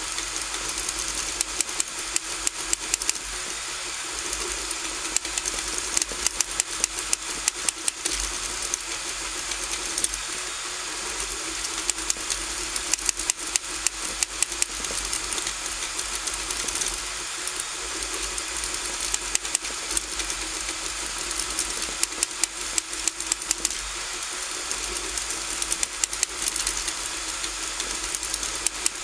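RigidBot 3D printer printing: its stepper motors and fan run with a steady whir and hiss, broken by frequent clusters of sharp rapid clicks.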